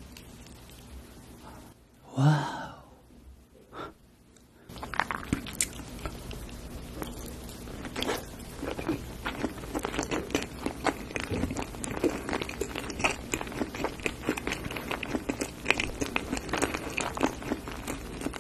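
Close-miked mouth sounds of chewing a spoonful of baked avocado with egg and bacon, the mouth closed: dense, irregular wet smacks and clicks from about five seconds in. One brief loud sound comes first, about two seconds in.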